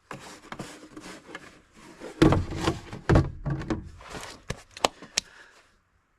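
Handling noises from the emptied plastic oil jug and funnel being moved and set down after topping up the engine oil: scattered knocks, two heavier thumps about two and three seconds in, then a few light clicks.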